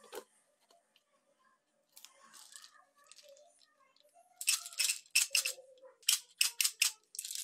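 Peanuts and pumpkin seeds rattling inside a plastic blender jar as it is closed and turned over, with handling clatter of the jar and its blade base. The rattles come as a quick run of short, sharp bursts over the last three seconds or so.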